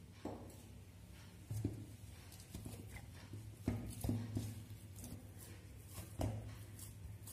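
Hands kneading oiled chapati-style dough in a stainless steel bowl: soft squishing with about half a dozen irregular dull knocks as the dough is pressed and pushed against the steel bowl.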